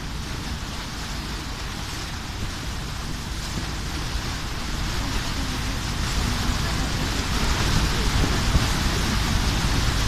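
Wind buffeting the microphone aboard a boat on open water, a steady rushing noise with a low rumble, growing gradually louder over the second half.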